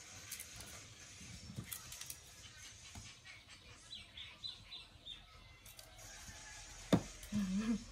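Quiet outdoor background with a run of about five faint high chirps about four seconds in. Near the end there is a sharp tap, then a brief low voice-like hum.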